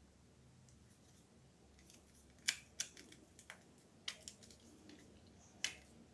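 Small sharp clicks and ticks of tweezers and a plastic TV remote control being handled, about seven of them at uneven intervals, the loudest about two and a half seconds in and near the end.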